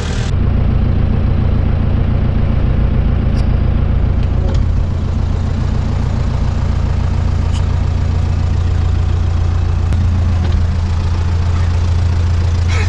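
Farm tractor's diesel engine running steadily, heard from inside the cab.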